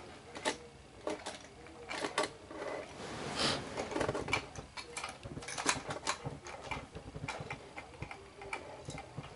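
Irregular small clicks, taps and rustling of plastic and metal parts of a Lionel toy train engine being handled and fitted together by hand.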